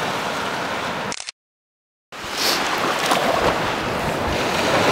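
Surf washing on the beach with wind buffeting the microphone, a steady rushing noise. It cuts out to complete silence for about a second just after one second in, then resumes.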